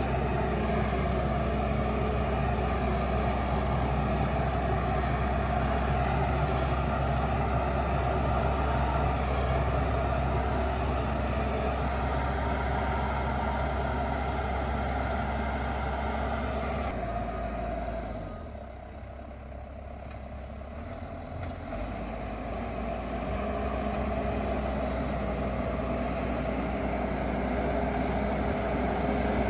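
Diesel engine of a heavy earthmoving machine running steadily. The sound drops quieter for a few seconds past the middle, then comes back up.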